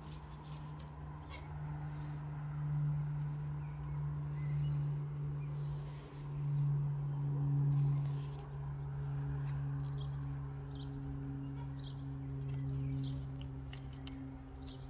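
Ambient background music: a steady low drone with higher held tones joining about halfway through. Short high chirps, like small birds, come in the later part.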